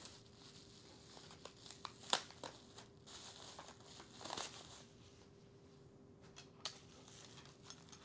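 Faint crinkling and crackling of a clear plastic packaging bag being handled, with a few sharper crackles about two and four seconds in.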